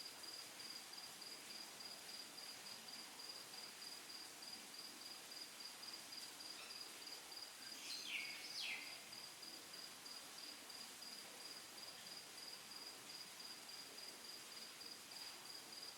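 Faint background with an insect's steady high-pitched pulsing trill, like a cricket chirping. About halfway through there are two short falling squeaks.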